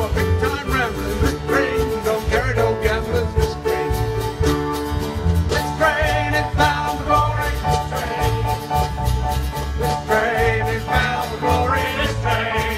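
Live band playing an upbeat country-folk number, with strummed acoustic guitar over a steady beat.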